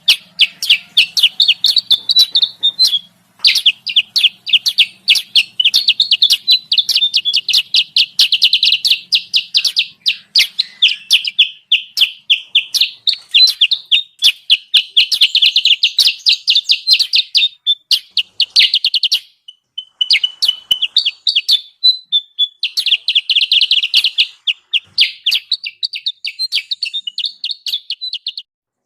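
Bird-lure recording of kutilang sutra calls: a rapid, dense chattering of high chirps, many a second, in long runs with a few short breaks and a brief steady whistled note a little past the middle.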